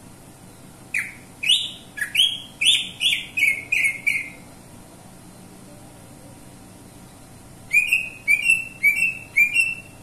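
Caged greater green leafbird (cucak ijo) singing two runs of loud, sharp whistled notes, about three a second. The first run lasts about three seconds; the second, shorter run starts after a pause of about three seconds.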